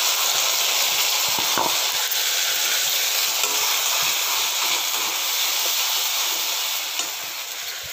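Wet ground spice and ginger-garlic paste sizzling in hot oil in a steel kadhai, a steady hiss that eases slightly near the end.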